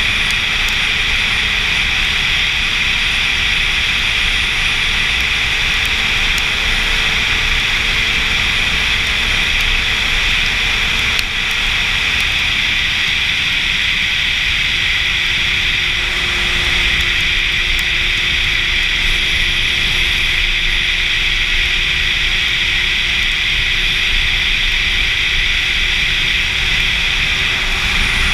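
Wind rushing over the microphone of a sport motorcycle at road speed, with a faint steady engine note underneath. The engine note steps down to a lower pitch about halfway through.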